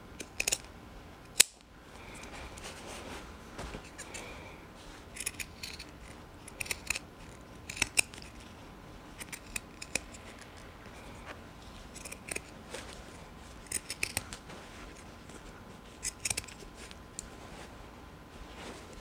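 Pinking shears cutting fabric seam allowance, trimming along a curve so the sewn bag will turn neatly right side out: a series of short snips in small clusters, with one sharper click about a second and a half in.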